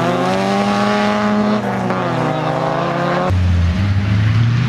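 Rally car engine revving hard at high revs, its pitch dipping and climbing again about halfway through. About three seconds in it gives way abruptly to a deeper engine note.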